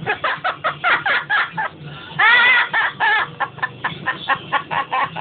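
Pet talking parrot laughing: a rapid run of short, clucking calls, broken by one longer, drawn-out squawk a little past two seconds in.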